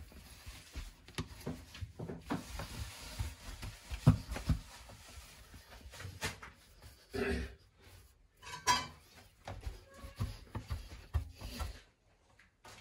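Hands working bread dough in a flour-filled wooden trough: irregular soft thuds as lumps of dough are pressed and turned over, with rubbing and scraping of flour against the wood.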